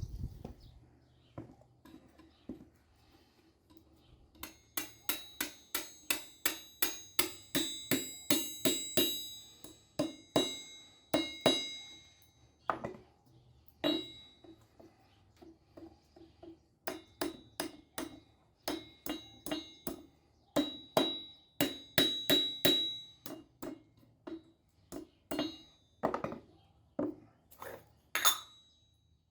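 Hand hammer striking iron on an anvil while forging a lamp stake: runs of quick ringing blows, about three a second, broken by short pauses.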